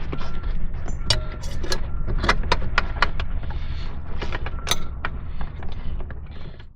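A run of sharp clicks and clunks from handling a pickup's rear seat latch and the seat-pull bracket being fitted over it, about a dozen irregular knocks, over a steady low rumble. The sound cuts off suddenly near the end.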